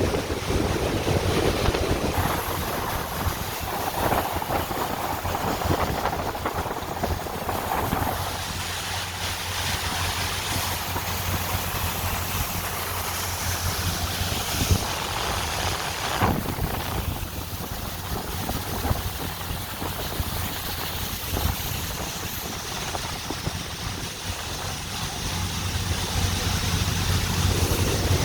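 Tour boat under way: its engine running steadily as a low hum, with wind buffeting the microphone and water rushing past the hull. The engine grows a little louder near the end.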